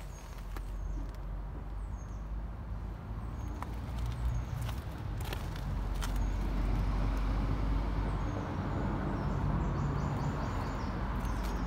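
Scania R520's V8 diesel engine idling steadily with a low rumble, with scattered crunching steps on gravel; the rumble grows a little louder about halfway through.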